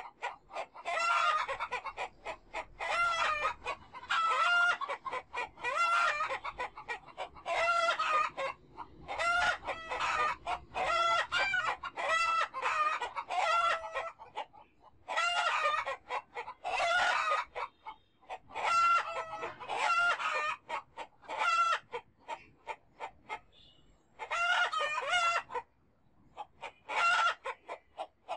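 Chickens calling nonstop: repeated clucking and cackling, with longer drawn-out calls like roosters crowing.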